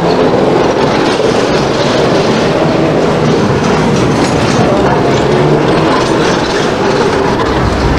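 Hong Kong double-decker tram rolling past close by, its steel wheels running on the street rails with a steady, loud rumble.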